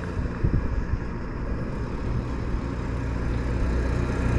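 A Fiat pickup approaching along the road and pulling up: a low engine and tyre rumble that grows steadily louder.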